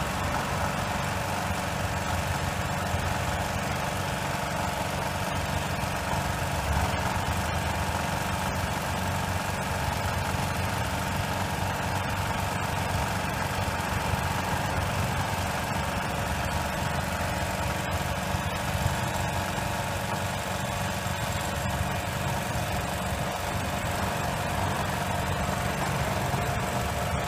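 The crack filler-sealer unit's engine running steadily as it pumps hot sealant through the hose to the hand wand.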